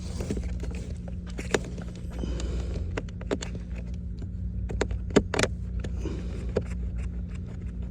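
Scattered clicks and light knocks of a small hand ratchet with a T20 bit driving screws into the plastic cabin air filter housing, over a steady low hum.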